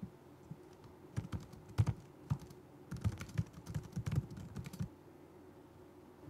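Typing on a laptop keyboard: a run of keystrokes, a few scattered ones and then a quicker run, stopping about five seconds in.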